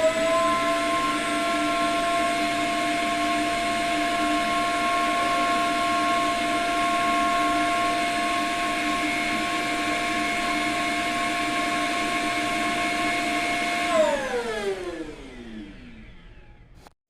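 Light 'N' Easy robot vacuum's self-emptying dock running its suction motor to empty the robot's dustbin: a loud, steady whine that winds down in pitch about fourteen seconds in and stops near the end.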